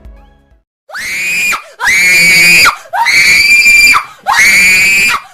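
Background music fades out, then four loud, high-pitched screams in a row, each about a second long, sliding up at the start and then held, with short gaps between them.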